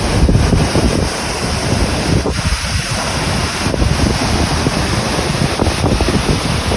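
Wind buffeting the microphone: a loud, gusty rumble with hiss over it.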